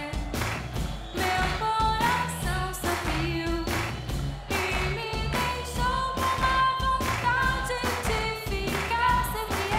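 A young woman singing a pop ballad into a microphone, backed by a band with bass guitar and drums keeping a steady beat.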